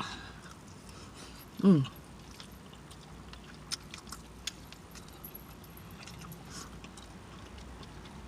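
A person chewing soft pasta with mouth smacking: scattered small wet clicks, and one short low vocal sound falling in pitch about two seconds in.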